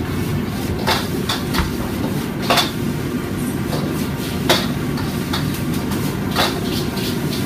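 Metal ladle clanking against a wok as a cook tosses stir-frying noodles: sharp clanks at irregular intervals, a second or two apart, over a steady low rumble from the wok station.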